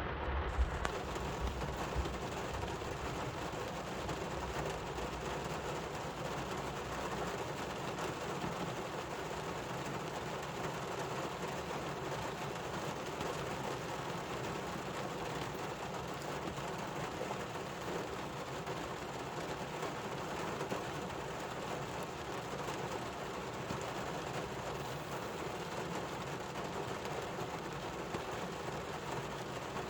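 Steady rain falling, an even hiss without a break, with a low rumble in the first couple of seconds.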